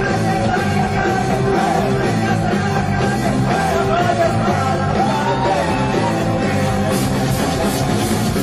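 Band music with a singing voice over drums; bright cymbal hits come in near the end.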